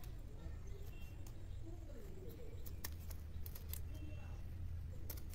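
Blunt household cloth-cutting scissors snipping ficus bonsai twigs and leaves: a handful of sharp, irregularly spaced clicks as the blades close, over a steady low hum.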